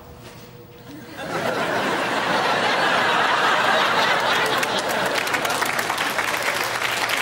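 Studio audience laughter breaking out about a second in and swelling into a sustained wave, with clapping mixed in.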